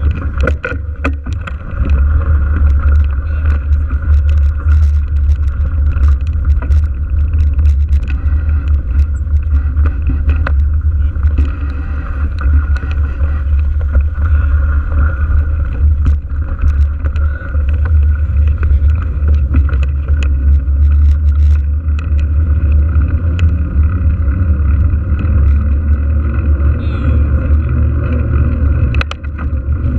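Wind buffeting the camera microphone on a moving mountain bike, with tyre and road noise. It is a steady, heavy low rumble with frequent small clicks and rattles from the ride.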